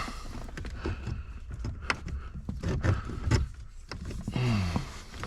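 Scattered clicks and knocks of plastic and metal parts being handled and worked onto mounting studs in a car's steering column, with a short falling hum from a voice about four and a half seconds in.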